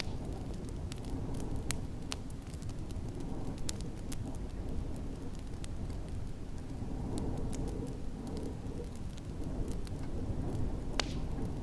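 Wood fire crackling with scattered sharp pops, one louder pop near the end, over a steady low rumble of snowstorm wind.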